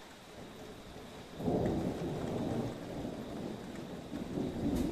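Thunder rumbling, starting suddenly about a second and a half in and rolling on with a second swell near the end, over a steady hiss of rain.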